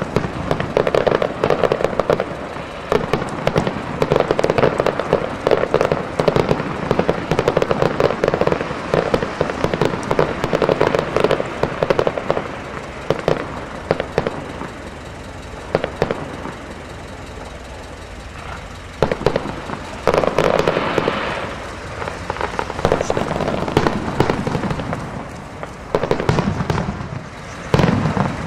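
Fireworks display: aerial shells bursting with dense, rapid bangs and pops. It thins out for a few seconds past the middle, then picks up again with fresh volleys near the end.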